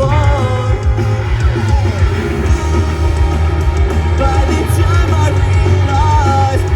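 Live punk rock band playing loudly: electric guitar with bass and drums, and a singer's voice over it.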